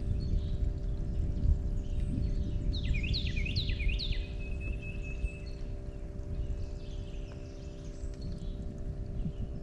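A songbird singing a phrase of about five quick, falling whistled notes about three seconds in, followed by a thin held whistle, over a steady low rumble and faint hum.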